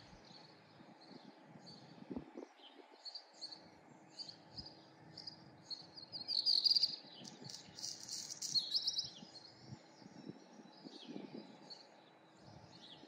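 Wild birds chirping and singing, with short high calls scattered throughout and the loudest, densest bout of song about halfway through. A faint steady hum lies underneath.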